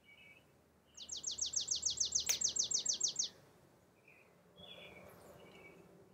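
A songbird sings a fast trill of about sixteen high, down-slurred notes, roughly seven a second, lasting a little over two seconds. Softer short chirps come before and after it.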